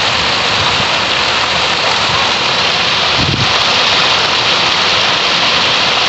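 Rain falling steadily through flowering litchi trees onto leaf-strewn ground, a dense even hiss.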